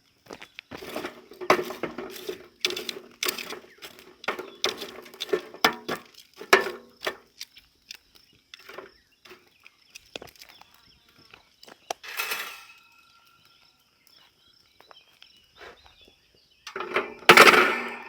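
Short clicks, taps and light clatter of small things being handled, thickest in the first seven seconds, with a louder rustling burst near the end. A steady high insect drone runs underneath.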